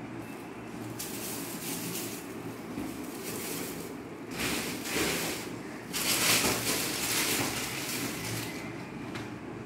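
Thin plastic carrier bag and plastic-wrapped cracker packets crinkling and rustling as they are handled, in several bursts, loudest about six seconds in.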